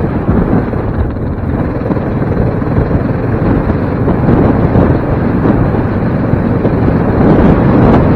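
A Yamaha Raptor 700R sport quad's single-cylinder engine running steadily on a dirt trail, largely buried under wind buffeting the helmet-mounted microphone.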